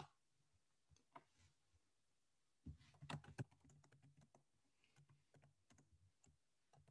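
Faint computer keyboard typing: a click right at the start, a couple of lone taps, then a quick run of key taps from about three seconds in as a short phrase is typed.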